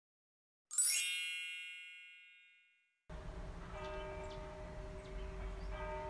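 A bright, shimmering chime sound effect that rings out under a second in and fades away over about two seconds. After a short silence, a faint outdoor background with a steady hum and a few faint short chirps.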